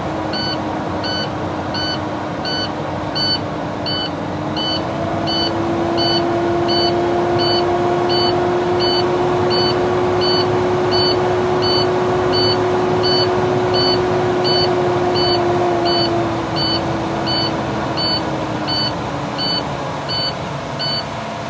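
Truck cab low-air-pressure warning buzzer beeping about twice a second over the tractor's diesel engine running at raised idle to build air. The engine speeds up about four seconds in and drops back near the end. The alarm stays on because air-tank pressure is still below the warning point while the compressor refills the tanks.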